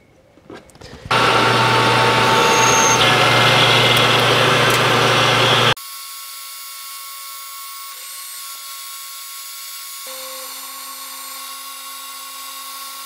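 Metal lathe turning a taper with the compound rest: a few light clicks, then about a second in the lathe starts running with a steady hum while the tool cuts. Just before halfway the sound drops abruptly to a quieter steady running sound, and another steady tone joins later.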